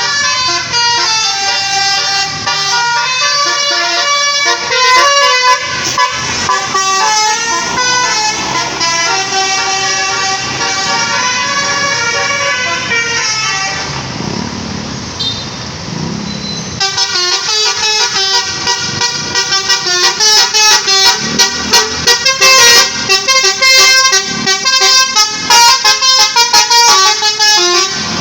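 A tour bus's Basuri telolet horn playing a tune of stepped horn notes, with a break of about three seconds midway where a low rumble is heard, then playing on in fast, chopped notes.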